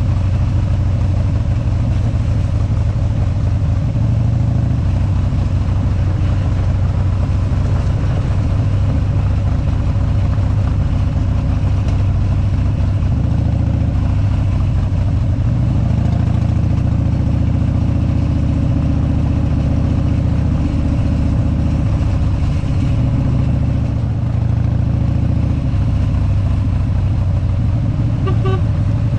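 Harley-Davidson big-twin V-twin motorcycle engine running steadily while riding a gravel road, its note shifting about halfway through.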